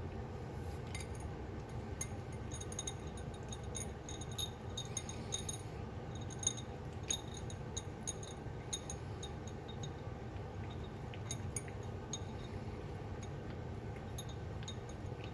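Cat with half of her lower jaw removed eating dry kibble from a plate: irregular light clicks and clinks of kibble against the dish, over a steady low hum.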